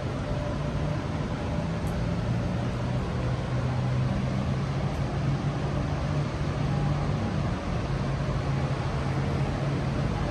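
Heavy rain falling in a steady, even hiss, with a low, steady engine hum running beneath it.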